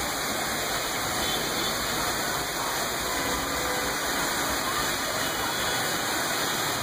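Heavy rain pouring steadily, a dense and even hiss.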